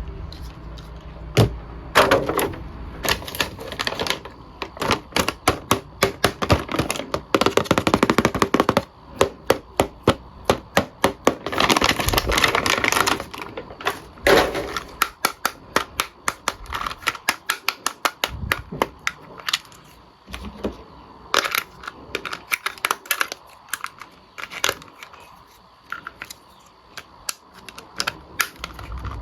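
Plastic action figure and its packaging being handled: a dense, irregular run of sharp clicks and taps, with louder crinkling stretches about a third of the way in.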